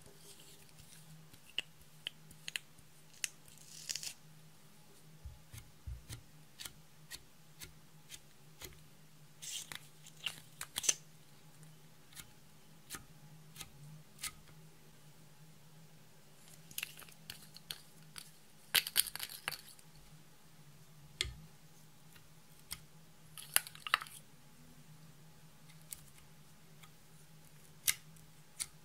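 Slime being worked by hand, giving scattered sticky clicks, crackles and small pops at an irregular pace, with a few louder clusters, over a faint steady low hum.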